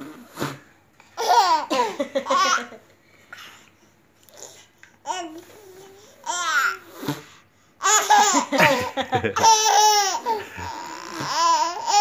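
Baby laughing in four high-pitched bouts of belly laughs and giggles, with short breaths between them.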